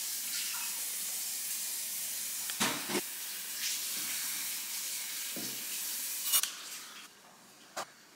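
Steady hiss of background noise with a few short clicks and knocks scattered through it. The hiss falls away sharply about seven seconds in.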